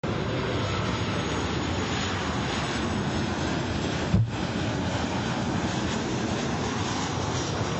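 Jet engines of a US Air Force C-40, a Boeing 737-based airliner, making a steady rush as the plane lands and rolls down the runway. A brief low thump about four seconds in.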